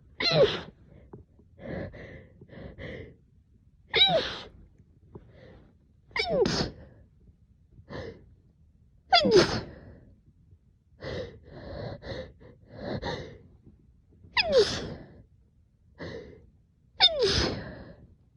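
A person in an allergic fit of sneezing and hiccuping: about six sharp, short voiced bursts, each dropping in pitch, come irregularly every two to three seconds, with softer breaths in between.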